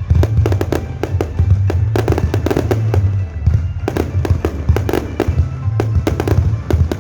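Aerial fireworks display: a dense, irregular barrage of sharp bangs and crackling reports over continuous deep booming.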